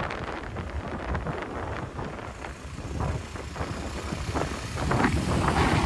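Motorcycle riding along a road: engine rumble under wind buffeting the microphone, getting louder near the end.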